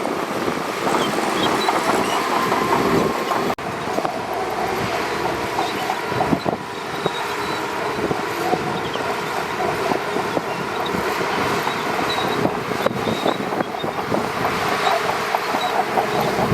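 Shantui DH17C2 bulldozer running under load, its engine noise mixed with the clatter and squeal of its steel tracks, with a brief break about three and a half seconds in.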